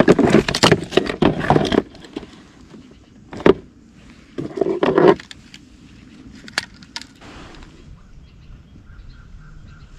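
Handling noise of a caught bass being held and prepared for weighing in a kayak: a loud spell of rustling and scuffing at first, then a few sharp clicks and rattles as a lip-grip tool on a hand scale is clipped onto the fish.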